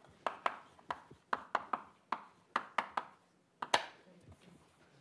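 Chalk writing on a blackboard: about a dozen sharp, uneven taps and clicks as words are written, dying away near the end.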